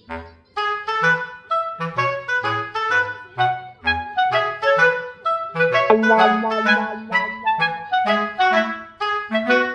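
Background music: a light tune of quick, short notes over a bass line.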